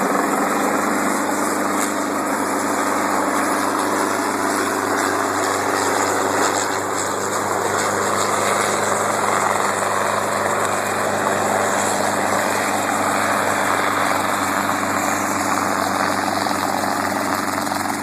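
Helicopter running close by with a steady engine and rotor sound that holds level throughout.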